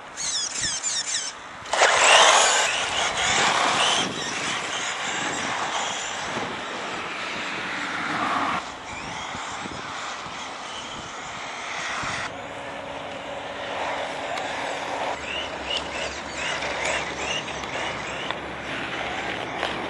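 Tamiya Gravel Hound electric radio-controlled buggy running on asphalt: motor whine rising and falling with speed over tyre noise. The sound shifts abruptly several times.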